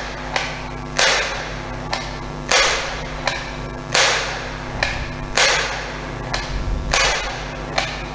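Little Gunner 6697A soft-dart toy revolver being cocked and dry-fired over and over: a sharp plastic snap about every second and a half, five times, with a lighter click between each. The spring mechanism goes off but the dart does not launch, which the owner puts down to the air not reaching the dart because the fit is too tight.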